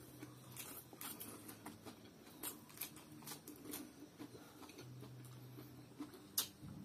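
Faint eating sounds: instant noodles being chewed, with soft clicks and taps of chopsticks and a fork against the plate, one sharper click near the end. A low hum comes and goes underneath.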